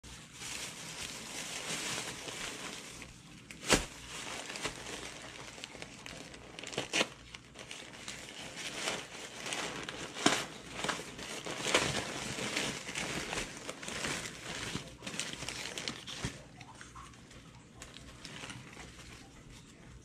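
A plastic carry-out bag and a paper sandwich wrapper crinkling and rustling as hands pull out and unwrap a sub sandwich, with a few sharp louder crackles. The rustling dies down over the last few seconds.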